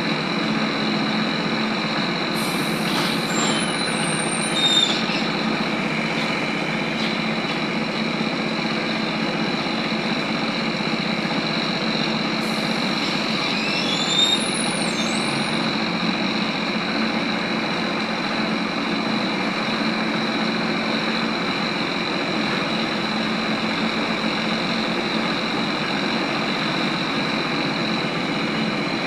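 Inside a ZiU-682G trolleybus under way: a steady hum and whine of the electric running gear with road noise. Twice, a few seconds in and again about 13 seconds in, a short hiss with high squeaks rises over it.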